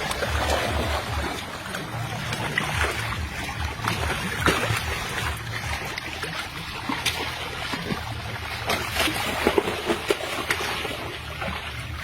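Water splashing and trickling in many small irregular splashes and drips, over a low uneven rumble.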